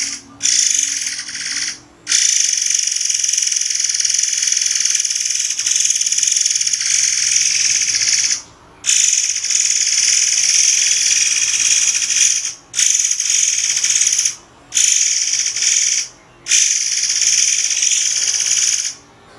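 Murai air songbird giving long, harsh, high-pitched rattling trills, the sharp 'tembakan' phrases used as a tutor recording for cage birds. The phrases run from about one to six seconds each, broken by half-second pauses, about six times.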